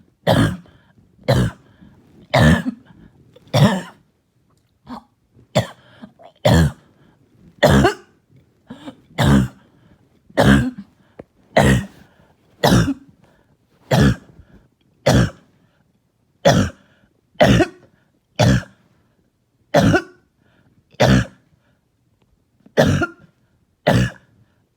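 A person's barking, hacking cough, coming as a string of some twenty single coughs at roughly one a second, with a couple of weaker ones between.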